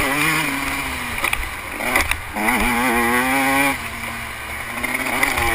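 Dirt bike engine on the throttle: its pitch sags and breaks off about two seconds in, sweeps quickly back up and holds, then drops away as the throttle is closed just before four seconds, and climbs again near the end.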